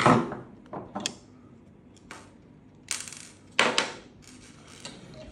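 Sharp clinks and clatters of small hard parts being handled on a wooden table, a screwdriver set down and a crossbow side plate lifted off, about five knocks with the loudest at the start.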